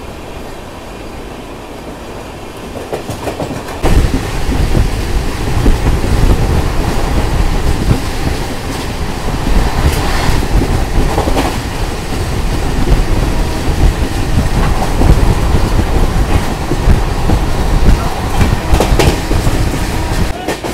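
Passenger train running at speed, its wheels clattering over the rail joints with scattered sharp clacks. About four seconds in the sound suddenly grows much louder, with a heavy low rumble.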